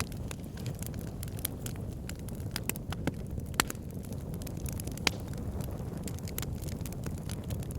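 Wood fire burning in a fireplace, crackling and popping irregularly over a steady low rumble of flames, with a couple of louder sharp pops near the middle.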